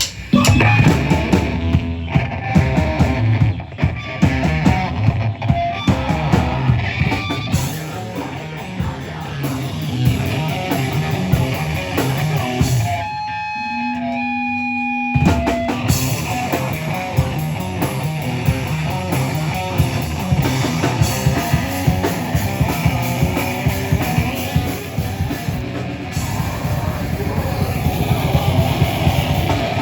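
Live heavy rock band playing loud, with distorted electric guitars and drum kit. About halfway through, the band drops out to a single held note for a couple of seconds, then crashes back in.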